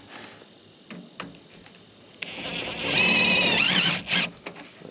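Power drill driving a self-tapping zip screw into a sheet-metal chimney pipe: the motor whines for about two seconds, then gives a short second burst as the screw seats. A few light clicks come before it.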